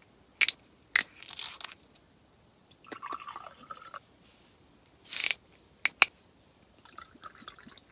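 A drink poured from a glass bottle into a drinking glass, the liquid filling it about three seconds in. Sharp clicks of the bottle and its cap come before and after the pour, and there is a short hiss in between.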